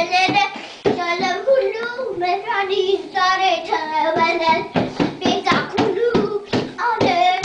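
A singing voice carries a melody throughout, over irregular hand strikes on a small double-headed drum that a young child is beating. The drum strikes come more often in the second half.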